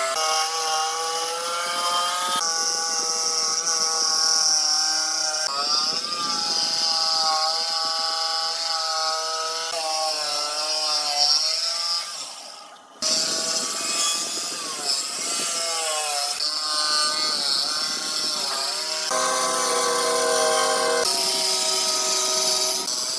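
Electric woodworking power tools cutting wood, the motor whine sagging and recovering in pitch as the tool bites, over a hiss of cutting. The sound changes abruptly every few seconds, with a brief drop about halfway through.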